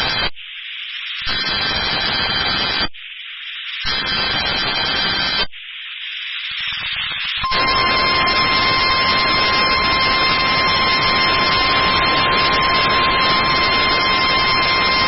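NOAA Weather Radio test alert received through heavy static: three buzzy SAME digital header bursts about a second apart, with hiss in the gaps, then, about seven and a half seconds in, the steady single-pitch warning alarm tone starts and holds.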